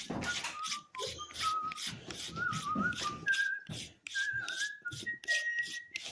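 A person whistling a wandering tune, the pitch stepping up and down, over repeated short scraping strokes about two or three a second.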